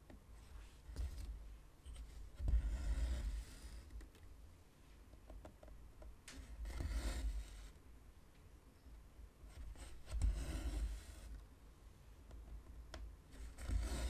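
Two-strand cotton embroidery thread drawn through 14-count cross-stitch fabric in a hoop: a rustling swish with each pull, four pulls about three to four seconds apart, each with a soft low thud.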